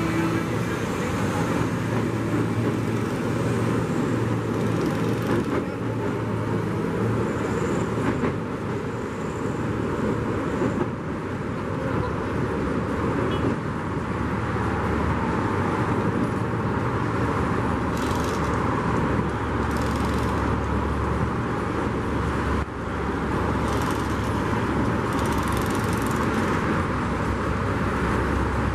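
Steady low rumble of a track-laying machine's engine running, mixed with road traffic noise, with a few faint knocks in the second half.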